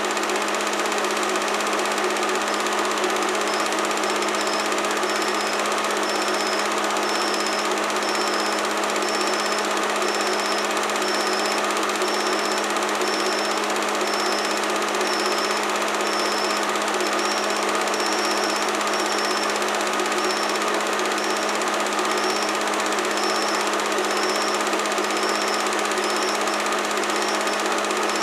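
Home-movie film projector running: a steady motor hum with rapid mechanical clatter. From a few seconds in, a faint high squeak repeats about once a second.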